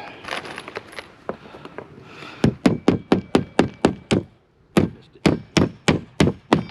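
Hammer driving roofing nails by hand through underlayment into old roof decking: light knocks and rustling, then about 2.5 seconds in two quick runs of loud hammer blows, about four a second, with a short pause between them.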